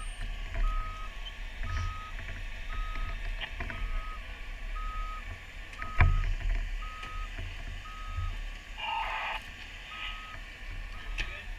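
Fire apparatus warning beeper sounding a single high tone about once a second over a low engine rumble, with a sharp knock about six seconds in.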